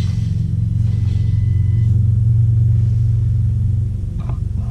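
A steady, loud low hum.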